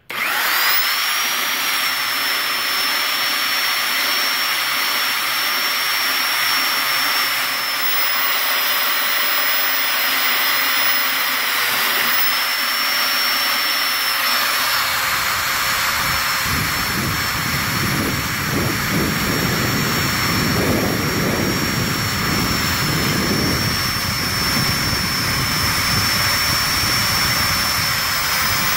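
Narrow belt file sander starting up and running with a steady high whine. From about halfway the 80-grit belt grinds against the cast iron inside a stock Chevrolet exhaust manifold port, adding a rough, uneven grinding noise as the port is smoothed out.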